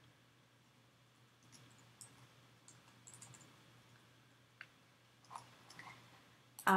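Faint computer keyboard keystrokes and mouse clicks, a scattered handful of taps with a short cluster about three seconds in, over a low steady hum. A brief burst of voice comes right at the end.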